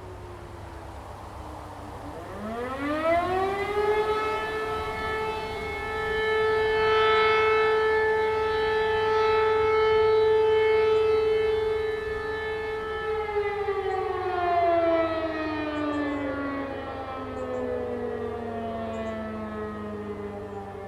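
E57 electromechanical motor sirens sounding the German fire-alarm signal. A previous tone is dying away at the start. About two seconds in, a siren winds up quickly to a steady howl, holds it for about nine seconds, then winds slowly down. Overlapping siren pitches can be heard as it falls.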